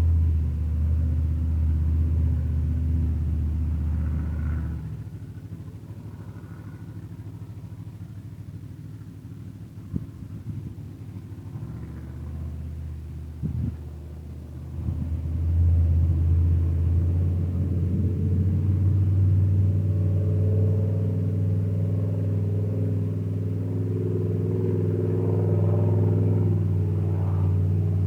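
Off-highway vehicle engines running. Loud at first, they drop away about five seconds in, then build back from about twelve seconds and run loud again, their pitch drifting slightly up and down. A couple of sharp knocks come in the quieter stretch.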